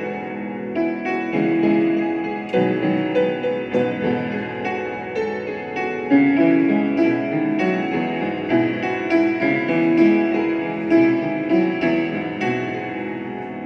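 Piano music: a melody of struck notes following one another in quick succession.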